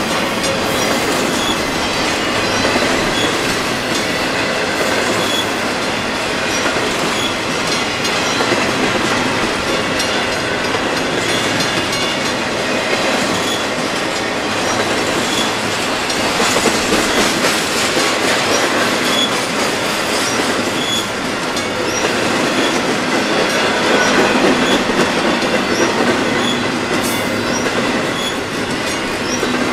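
Long intermodal freight train of double-stack container cars and truck-trailer cars rolling steadily past: a continuous rumble of steel wheels on rail with clicking as the wheels run over the rails.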